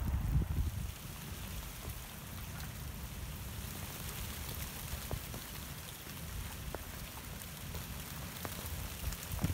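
Rain falling on standing water: a steady patter with many separate drops plinking on the surface. A brief low rumble at the very start.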